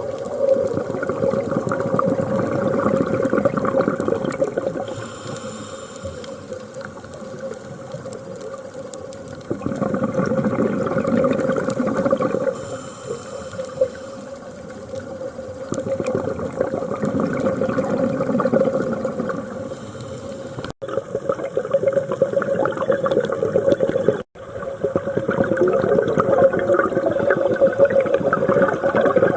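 Scuba diver breathing underwater through a regulator: slow, regular breath cycles, each exhalation a loud stretch of bubbling, with a steady hum underneath.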